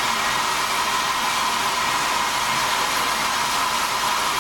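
Steady rushing hiss of steam escaping from a narrow-gauge steam locomotive's fittings while it stands.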